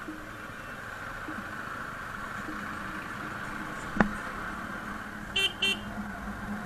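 Two short horn toots in quick succession, over the steady hum of a motorcycle riding along, with a single sharp click about four seconds in.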